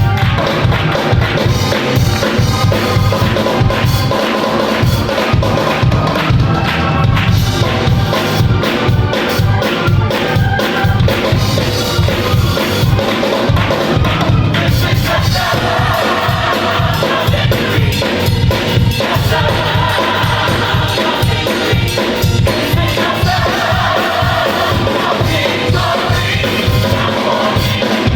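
Up-tempo gospel music with a steady drum-kit beat and heavy bass. A choir's held sung notes become prominent about halfway through.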